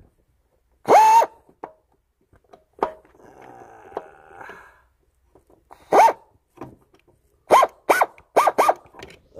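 A dog barking: six short, sharp, high-pitched barks, one about a second in and a quick run of five in the last few seconds. Between them, midway, comes a faint scraping of a hand tool.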